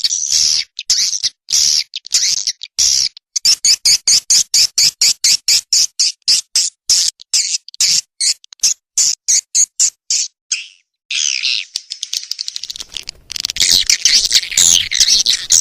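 Swiftlet calls played as a lure track: a rapid run of short, high, clicking chirps, about five a second. After a brief pause about ten seconds in, they give way to a dense, continuous twittering chatter.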